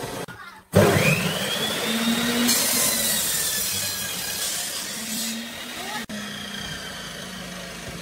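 Table saw running under a wooden benchtop: it starts abruptly about a second in with a quickly rising whine, then the blade cuts through a pine board with a harsh hiss for a few seconds while the whine slowly falls.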